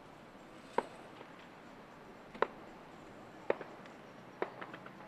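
Distant fireworks going off as single sharp bangs about a second or so apart, about four strong ones, with a few smaller pops near the end.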